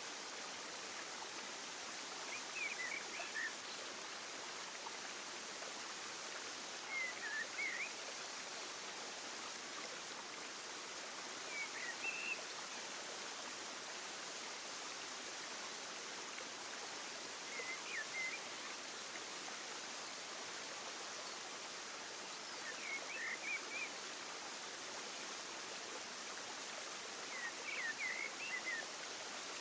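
Steady rush of running water in a natural ambience, with a short burst of high chirps about every five seconds.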